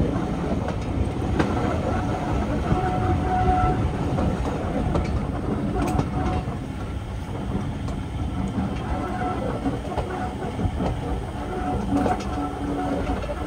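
Railway carriage running along the line: a steady rumble of wheels on rail, with occasional clacks from the rail joints.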